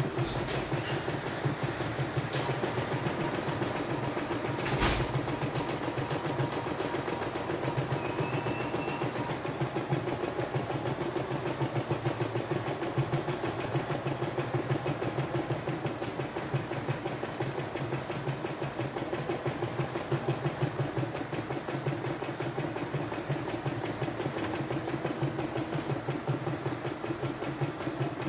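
CNY E960 embroidery machine stitching a design: a steady, rapid needle chatter throughout, with three sharp clicks in the first five seconds.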